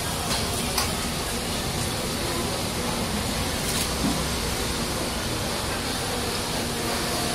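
Steady street ambience: a continuous hiss and low rumble with a faint steady hum, and a few faint clicks.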